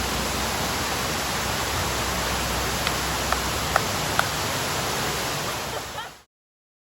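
Steady rushing water noise of a waterfall, with a few faint brief ticks in the middle, cutting off suddenly about six seconds in.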